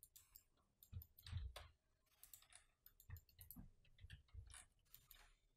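Faint, irregular clicks of a computer mouse and keyboard, a few a second.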